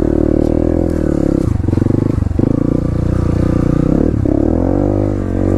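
Dirt bike engine running under throttle, its pitch rising and falling as the rider works the throttle, with short choppy drops in revs about one and a half to two and a half seconds in and again about four seconds in.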